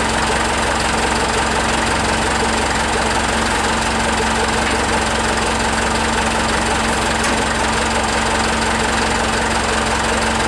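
Engine idling steadily with an even, unchanging drone and a strong low hum.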